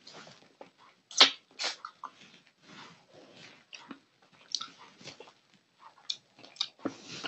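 Close-up wet eating sounds: a man chewing and smacking his lips over gravy-soaked rice and fish curry eaten by hand, in irregular clicks and slurps, the loudest about a second in.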